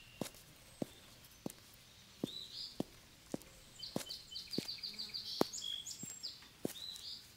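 Steady footsteps on an asphalt road, a sharp step a little under twice a second, with birds singing around them; a rapid, even trill from a bird about four seconds in, lasting about a second.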